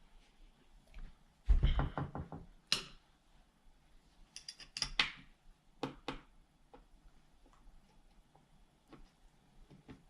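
Scattered clicks and knocks of a screw being driven in by hand and steering wheel parts being handled, with the loudest knock and a quick run of clicks about a second and a half in.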